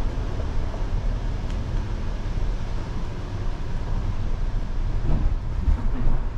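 Low, steady rumble of a car rolling slowly across the wooden plank deck of a covered bridge, heard from inside the cabin.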